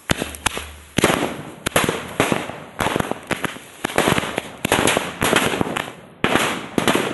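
Firecrackers going off in a rapid series of loud bangs, about a dozen, roughly one every half second, each followed by a short crackling tail.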